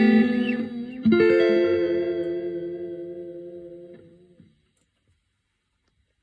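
Electric guitar (Fender Road Worn Player Stratocaster) played through a T-Rex Reptile delay pedal into a Roland JC-40 amp. A chord rings out and fades, then a second chord is struck about a second in and rings, dying away about four and a half seconds in.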